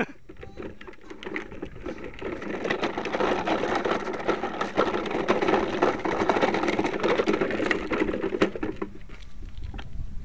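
A bicycle rattling and clicking as it is moved over rough gravel ground, heard through the camera mounted on its handlebars: a dense run of ticks and knocks that builds about two seconds in and dies down near the end.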